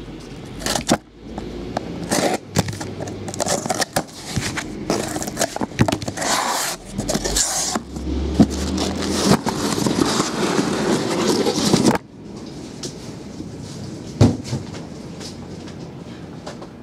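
Cardboard case being opened and the hobby boxes inside slid out and set down: cardboard scraping and rustling with knocks, which stops abruptly about twelve seconds in, followed by a single knock a couple of seconds later.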